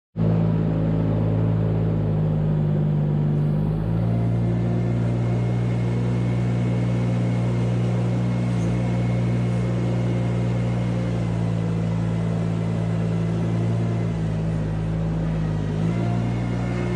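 Engine of a small farm loader running steadily while it pushes a manure scraper along the barn floor. Its note shifts slightly about four seconds in and again near the end.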